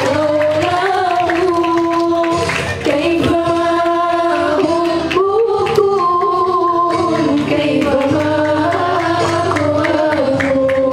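Sholawat, a devotional Islamic song, sung by several voices in long, bending melodic phrases over a steady low backing.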